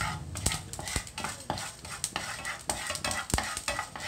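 Wooden spatula stirring and scraping mustard seeds and urad dal around a nonstick frying pan in quick, irregular strokes. A light sizzle runs underneath as the dal roasts in hot oil toward red, and there is a sharp click a little past three seconds in.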